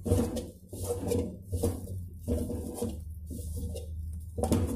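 Steel tumbler pounding and scraping chopped chapati against a metal kadai, about one and a half strokes a second, mashing it into kothu chapati. A steady low hum runs underneath.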